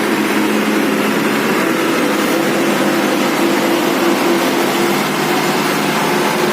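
Vehicle engines running steadily, an even hum with no sudden changes.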